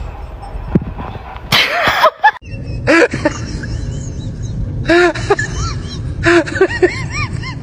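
A small dog barking in quick bursts, several short yappy barks to a burst, after a brief loud rush of noise about a second and a half in.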